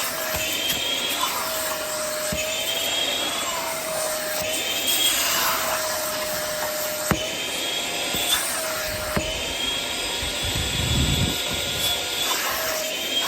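Vacuum cleaner running, a steady whine that wavers slightly in pitch over a hiss, with two sharp knocks in the second half.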